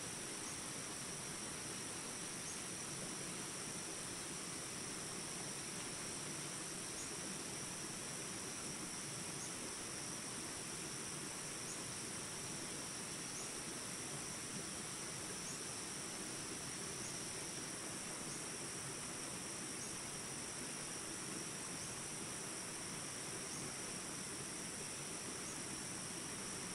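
A steady rush of flowing water, with a continuous high-pitched trill over it and faint short rising chirps every second or two.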